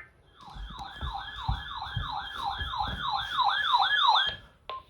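Electronic siren-style warning alert from a weather alert radio: a wailing tone sweeps up and down about three times a second for about four seconds, then cuts off, followed by a brief beep. It signals that a new warning has been received.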